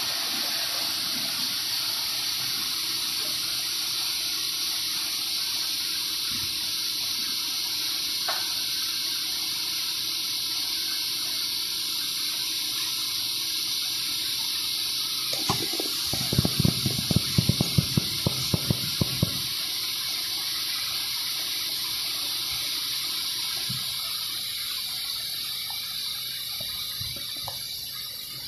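Steady rushing hiss of running water, easing off slightly near the end. A little past the middle, a cluster of low knocks and thumps sounds for about four seconds.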